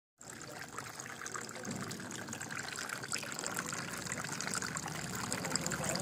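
Tiered bamboo water fountain running: thin streams of water trickling from one bamboo tube into the next and splashing into the basin, a steady trickle with many small splashes.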